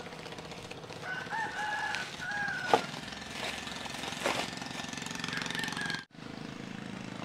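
A rooster crowing once, a long call of about a second and a half, over a steady low hum. Two sharp knocks follow, the first of them the loudest sound here.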